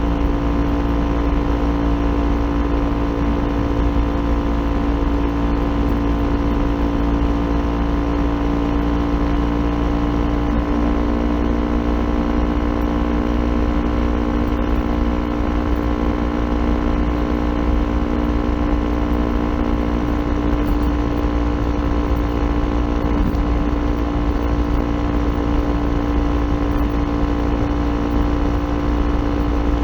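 Kawasaki Ninja 400's parallel-twin engine running through an Akrapovic aftermarket exhaust at a steady, unchanging pitch while cruising, over a heavy low rumble of wind and road noise.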